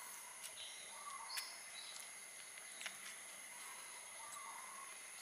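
Faint background ambience: a few short, scattered bird chirps over a steady high-pitched whine.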